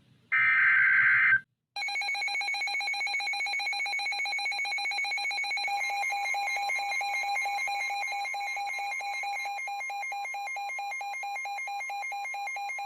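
A short burst of EAS/SAME header data, a buzzy digital screech lasting about a second, is followed by a weather radio's warning alert: a rapid trilling electronic alarm. A steady 1050 Hz-type NWS warning tone joins underneath about six seconds in. Together they signal that a new severe thunderstorm warning is about to be read.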